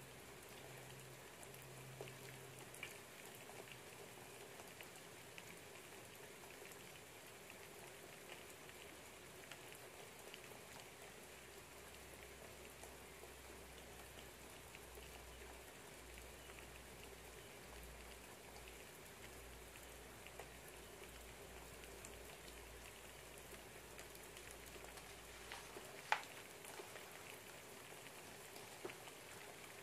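Faint, steady patter of rain outside a window. A single sharp tick comes near the end.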